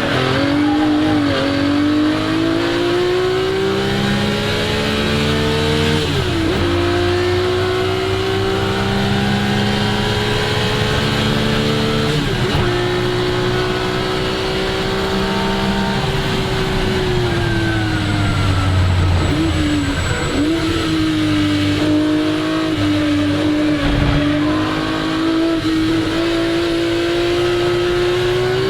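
1961 Ferrari 250 GT SWB's Colombo V12 at full throttle, its note rising through the revs with sharp drops at two upshifts, about 6 and 12 seconds in. Past the middle the revs fall away with quick throttle blips on the downshifts, then climb again under acceleration.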